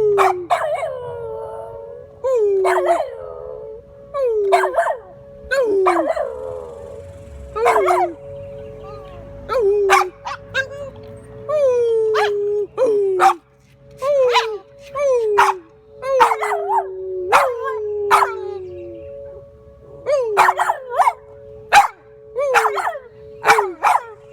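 A Boston terrier howling over and over: short howls that fall in pitch, roughly one a second, some coming in quick pairs near the end. Under them an emergency siren holds a steady two-note tone throughout.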